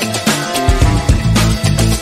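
Background music with a steady beat, drums and a bass line.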